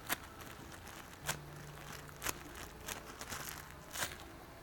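Faint handling noises of a foam squishy toy being shown: about four brief soft clicks and light rustles over a low steady hum.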